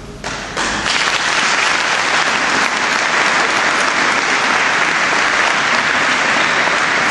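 Audience applauding: the clapping starts within the first second and keeps up steadily.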